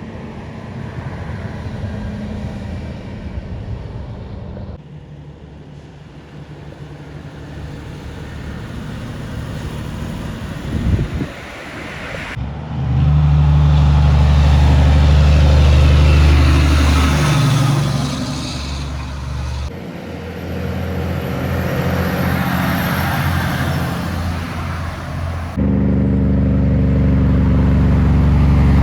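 Heavy trucks passing on a highway hill, their diesel engines running under load with road noise, in several short cut-together passes; the loudest pass comes about halfway through.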